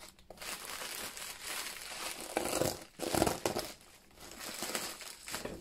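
Plastic poly mailer bag crinkling and rustling in irregular bursts as it is handled and cut open with scissors, loudest around the middle.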